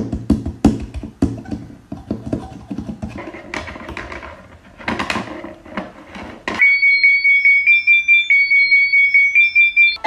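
A rapid, irregular run of clicks and knocks, then a high electronic beeping tone pulsing about four times a second, like an alarm.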